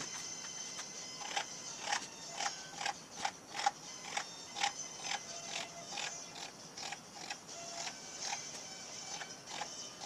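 Steel scribe scratching along a galvanized sheet-metal plate in short repeated strokes, roughly two a second, marking out a cut line.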